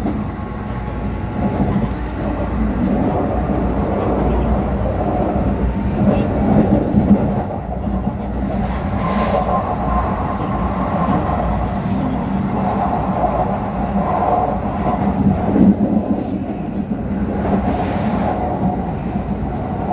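Keikyu express train running at speed, heard from inside the passenger car: a steady rumble of wheels on the rails with the hum of the traction motors rising and falling.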